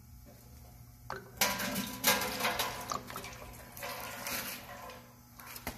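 Ink-dyed water draining in a thin stream from the bottom ball valve of a Daehyun oil-water separator and splashing into a stainless steel tray. The splashing starts about a second in and runs unevenly.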